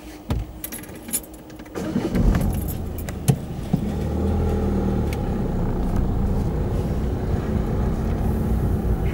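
A few light clicks and rattles. About two seconds in, the car pulls away and drives over the level crossing: engine and tyre rumble heard from inside the car.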